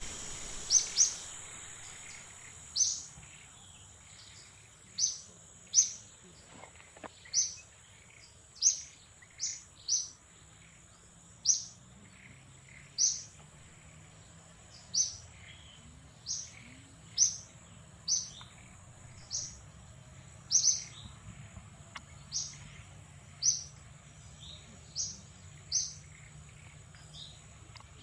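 Baby monkey crying: short, high-pitched squealing cries repeated about every second or so, over and over.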